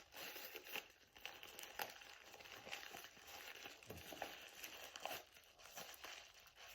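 Faint crinkling and rustling of packaging being handled and opened, with scattered small clicks.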